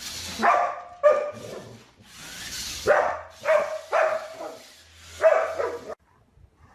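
A dog barking in a run of about six short, sharp barks, stopping abruptly near the end, with a couple of hissing breaths or rushes of noise between them.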